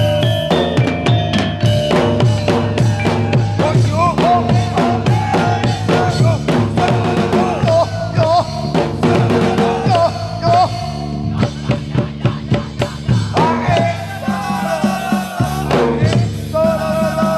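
Loud music with a steady drum beat and a wavering, sustained melody line over it.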